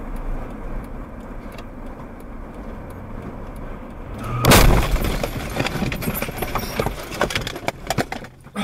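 Steady road noise inside a moving car, then about four and a half seconds in a loud crash as it collides with a car crossing its path, followed by a few seconds of clattering and crunching debris.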